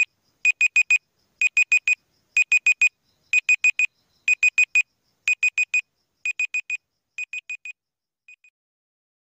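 Electronic countdown-timer beeper sounding quick groups of four high beeps, one group every second, in the pattern of a digital alarm clock. The beeps grow fainter over the last couple of seconds and stop as the count runs out.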